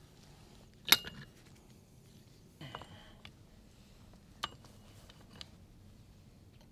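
Steel pipe wrenches clinking against galvanized steel pipe fittings as the jaws are set and the fitting is turned: a sharp metallic clink about a second in, the loudest, then a short rattle of clinks, another clink and a fainter one.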